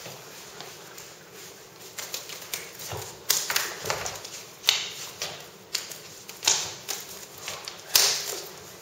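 Bare forearms and hands slapping, tapping and brushing against each other in Wing Chun chi sao sticky-hands training: an irregular patter of light taps with about four louder slaps, the loudest near the end.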